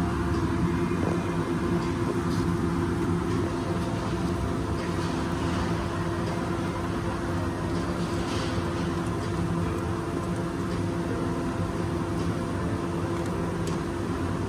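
A steady machine hum with a low drone, and a few faint clicks and scrapes of hands working at the engine's plastic timing-belt cover.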